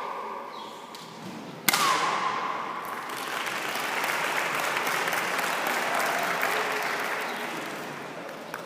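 A sharp crack with a short shout about two seconds in, then a crowd applauding for several seconds, fading near the end.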